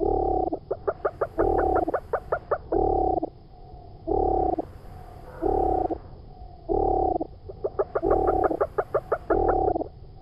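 Looped frog calls in an edited sound collage: a low croak repeating about every second and a half, with a quick rattling trill laid over it twice.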